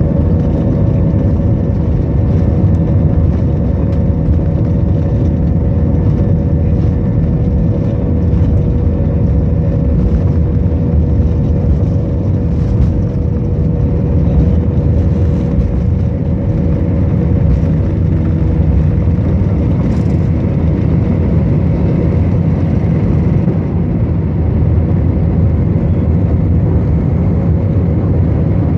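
Airbus A320 cabin noise: a steady, loud rumble of the jet engines and airflow heard from inside the cabin, with a faint hum that fades over the first half.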